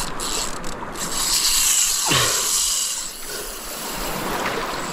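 Spinning reel's drag buzzing steadily as a big fish strips line off against a tight drag.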